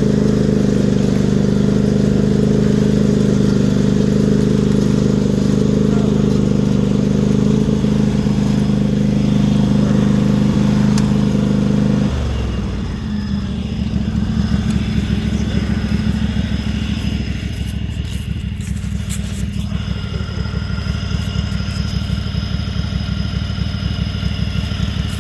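Lawn mower engine running loud through a truck exhaust pipe strapped onto its exhaust, held at a steady high speed, then dropping suddenly to a lower, slower running about halfway through.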